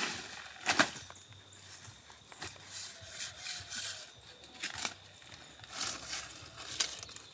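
Scattered short crackles and rustles, one about every second, like something being handled or brushing against dry material.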